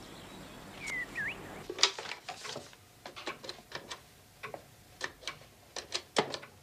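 A bird chirps briefly about a second in; then a run of light, irregular clicks and taps, about three a second, as papers and desk items are handled at a writing desk in a small room.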